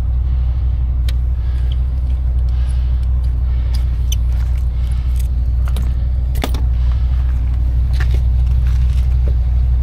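Steady low rumble with a few light clicks and taps scattered through it.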